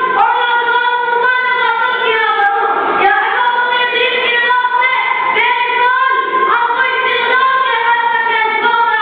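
A single high-pitched voice chanting unaccompanied into a microphone, holding long notes that bend up and down in melodic turns.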